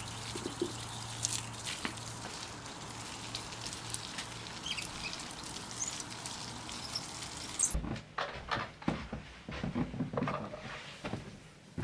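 Water from a garden hose spattering on potted shrubs, paving and grass, heard as a steady haze. About eight seconds in this cuts off, and a few knocks and bumps follow as an upright vacuum cleaner is handled, not yet switched on.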